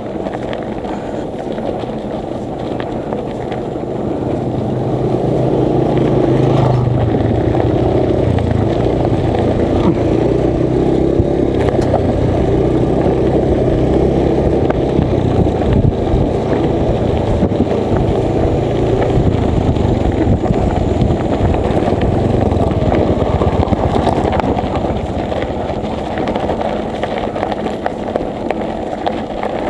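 Steady rumbling noise of riding along a road, growing louder about five seconds in and then holding level.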